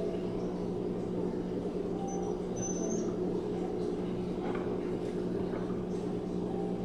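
LG WM3050CW front-load washing machine running with a load of clothes in the drum, a steady hum. A few faint short high squeaks come about two to three seconds in.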